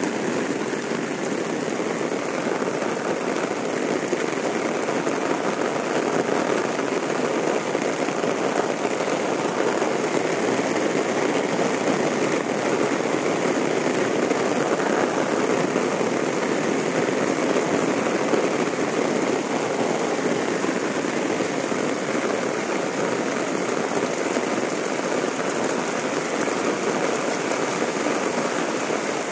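Heavy rain falling steadily on a wet asphalt road, an even continuous noise with no breaks.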